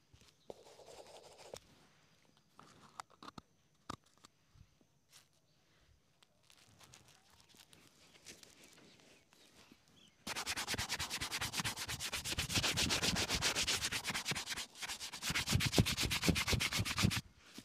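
Shoe brush scrubbed rapidly back and forth over a black leather boot, brushing up the shine. It starts about ten seconds in after a few faint taps and handling noises, with a brief break partway through.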